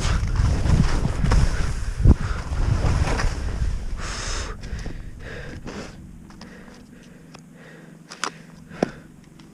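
Wind buffeting the microphone and the rush of skis on snow during a downhill run. It fades out after about five seconds as the skier slows, leaving quieter scrapes and a few clicks near the end.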